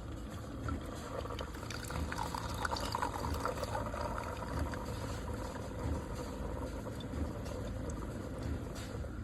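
Keurig K-Slim single-serve coffee maker brewing: liquid streams and splashes into a cup, loudest about two to four seconds in.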